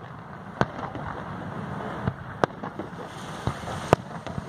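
Fireworks display: sharp bangs of bursting aerial shells at irregular intervals, about five in all, the loudest near the end, over a steady background crackle.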